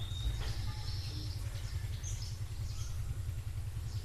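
Background room noise with a steady low hum and a few faint, short, high bird chirps.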